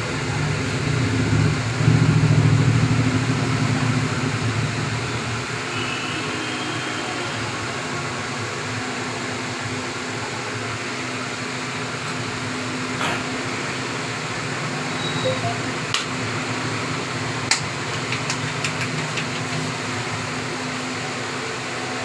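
Steady street background noise with a low hum. A louder low rumble swells and fades about two to four seconds in, and a few sharp clicks or taps come later on.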